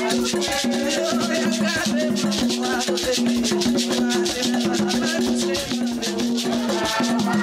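Haitian kompa band music: a repeating bass line over steady drums and a shaker, with melodic lines above.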